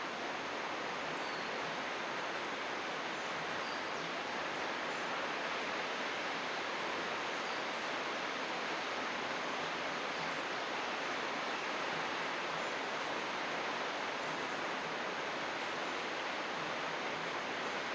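Steady rushing of flowing river water, an even wash of noise with no change in level. Faint, short high bird chirps come through now and then.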